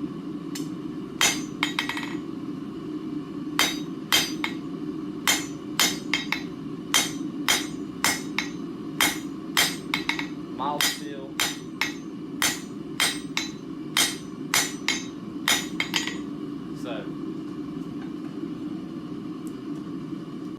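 Blacksmith's hammer striking hot round bar stock on an anvil, drawing out a taper over the anvil's edge, at about two blows a second, with a few quick rebound taps early on; the anvil ring is damped by a chain laid on it. The hammering stops about 16 seconds in, leaving a steady low hum underneath.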